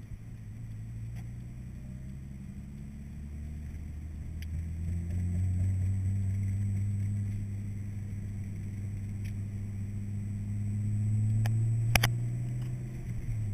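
Car engine heard from inside the cabin while driving, a steady low hum that grows louder about four seconds in and again toward the end. A sharp click sounds about twelve seconds in, with a couple of fainter ones around it.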